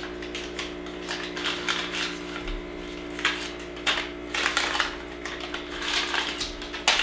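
Paper wrapper of a margarine stick being peeled and crinkled, in several short rustling scrapes, the sharpest near the end, over a steady electrical hum.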